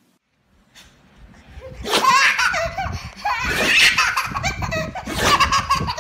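Baby belly-laughing in repeated bursts of giggles, starting about two seconds in.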